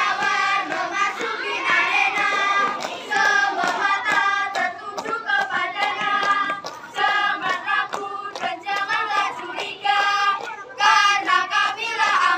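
A group of young scouts singing and chanting a yel-yel cheer in unison, in short rhythmic phrases, with sharp hand claps.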